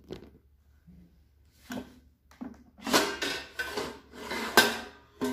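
Hard plastic scraping and rubbing as the basket drawer of a new Black+Decker air fryer is worked open, in several strokes with a sharp clack a little before the end.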